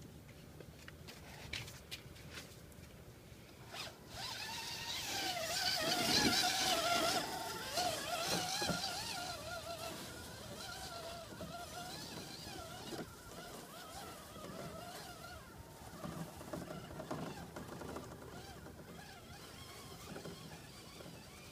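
Vaterra Ascender RC crawler's electric motor and drivetrain gears whining, the pitch wavering with the throttle as it churns through slushy snow. The whine comes in about four seconds in, is loudest for a few seconds, then fades as the truck drives off.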